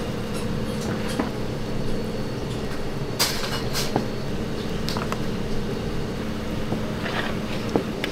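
A plastic spatula stirring and scraping thick chili pepper sauce in a large plastic tub. It makes a few light knocks and a short scrape over a steady low machine hum.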